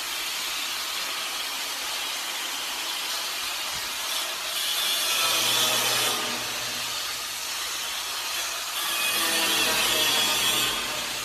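Angle grinder cutting a sheet-metal panel with an abrasive disc: a continuous hissing grind that grows louder twice, about four and a half seconds in and again near the end, as the disc bites into the metal.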